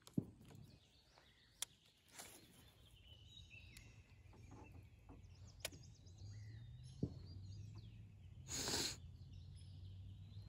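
Quiet outdoor pond ambience with faint birdsong, a few sharp clicks, and a low steady hum that starts about six seconds in. A short rushing noise, the loudest thing here, comes about eight and a half seconds in.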